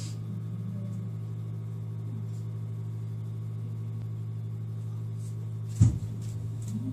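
Cabin sound of a JR East E129 series electric train: a steady low hum with a single sharp clunk a little under six seconds in.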